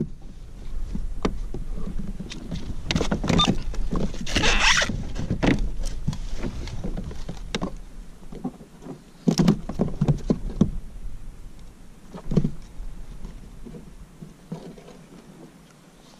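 Handling noise on a plastic kayak: scattered knocks and thumps against the hull with a short rasping rustle about four and a half seconds in, over a low rumble that fades out around the middle.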